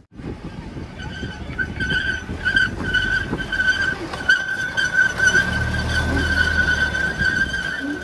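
Miniature ride-on train running on its small-gauge track, its steel wheels giving a loud, steady high squeal against the rails. A low rumble builds about five seconds in as the locomotive and cars pass close by.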